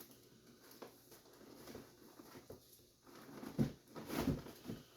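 Faint handling of packaging: soft rustling and small clicks as a bag is opened, with a couple of louder soft thumps about three and a half and four seconds in.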